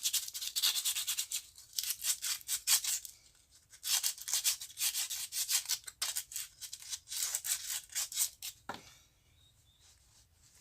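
Polish (emery) paper rubbed quickly back and forth on the wall fan's metal motor shaft, cleaning off hardened, dirty grease. The rapid scratchy strokes stop near the end.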